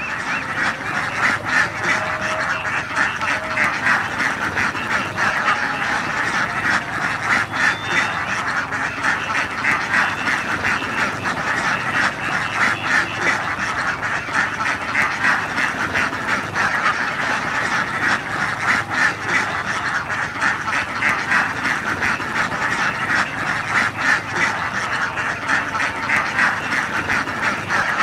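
A large flock of runner-type domestic ducks quacking all at once, a dense clamour of many overlapping calls that never lets up.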